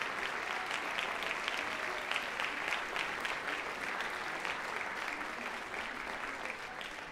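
Audience applauding, a dense steady clatter of many hands clapping that begins to die away near the end.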